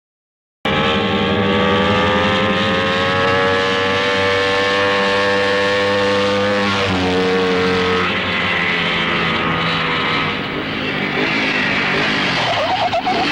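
Suzuki Hustler TS250 motorcycle, a two-stroke single-cylinder engine, running at steady revs after a brief silence at the start. Its pitch creeps up slowly, drops suddenly about seven seconds in, and gives a short rising rev near the end.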